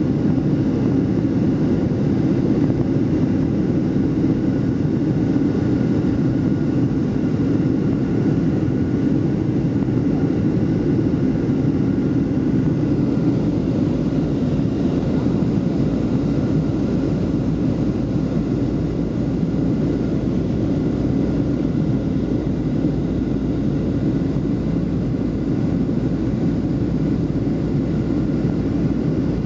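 Steady roar of engine and airflow noise inside the cabin of a Boeing 737 airliner descending on approach, with a faint steady whine above it.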